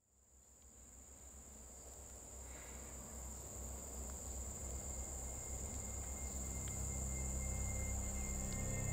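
A steady, high-pitched chorus of crickets fades in from silence. Beneath it, a low drone slowly swells, and faint sustained musical tones creep in near the end.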